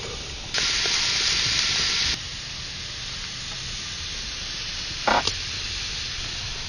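Steady hiss of a clay pot of water heating on a wood fire, loud for about a second and a half and then cut off sharply, with a fainter hiss after. A short sharp knock about five seconds in.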